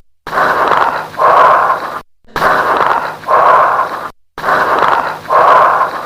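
Recorded lung sounds of bronchial breathing with late-inspiratory crackles, played as a loop. There are about three breaths, each a noisy in-breath and out-breath with a short pause between them and fine crackles, and each breath is cut off by a brief silence roughly every two seconds. Bronchial breathing with crackles heard over the lung is typical of consolidation.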